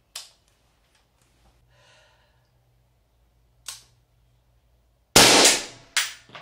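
Suppressed AR-15 fired in a small tiled room. Two short sharp clicks come first, then about five seconds in a loud report that rings on for most of a second, and a second sharp crack under a second later. Light rattling clicks begin at the very end.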